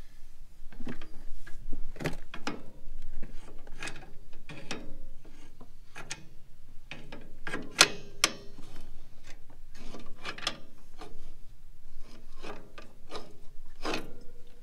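Metal parts of a trailer's electric drum brake assembly being handled: a run of irregular scrapes and clicks, about one or two a second.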